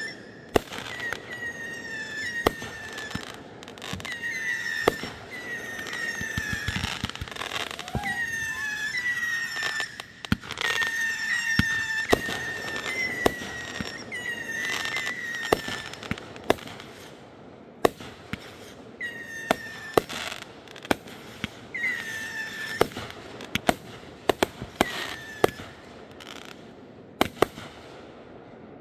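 Aerial fireworks going off, with many sharp bangs and crackles. A short, high squealing tone repeats about once a second through the first half, and comes a few more times later.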